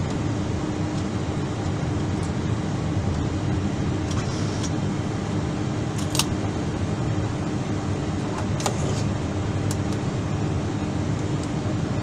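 Steady cabin noise inside an Airbus A319 standing at the gate: a constant rushing hum with one steady low tone, and a few faint clicks about six and nine seconds in.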